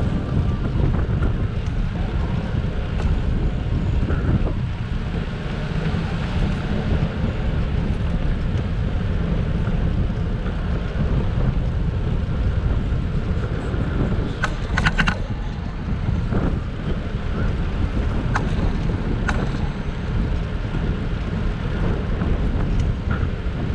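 Steady wind buffeting a bike-mounted camera's microphone over the low rumble of bicycle tyres on asphalt. A short cluster of sharp clicks comes about two thirds of the way in.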